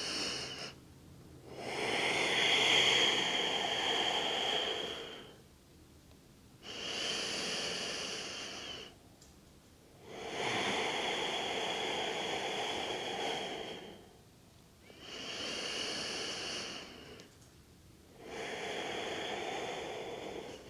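A woman breathing slowly and audibly in and out, close to the microphone. There are about three full breath cycles, each breath a soft, airy rush lasting two to four seconds, with short silent pauses between them.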